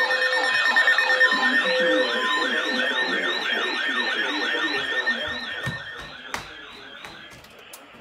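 Several electronic sirens wailing together in a rapid warble, a few cycles a second, with a steady tone beneath them in the first half. They fade away over the last few seconds, and a few sharp clicks come near the end.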